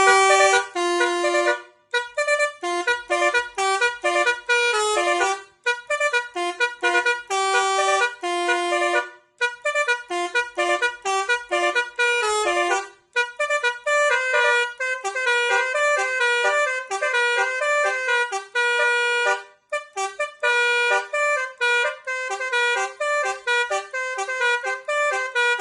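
Musical multi-tone horn on a Hino RK bus playing a fast tune of short, brass-like notes, in phrases broken by a few brief pauses.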